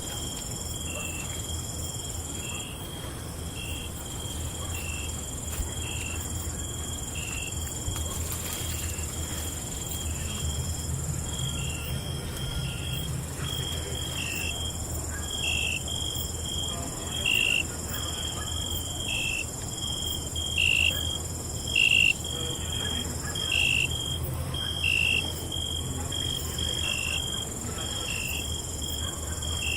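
Night crickets chirping: a continuous high trill, with a nearer insect giving short chirps about once a second that get louder in the middle. A steady low rumble runs underneath.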